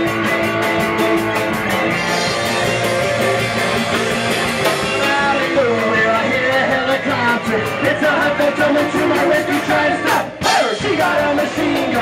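Rock band playing live: guitar and drums with a fast, steady cymbal beat, and a singer's voice coming in about halfway through.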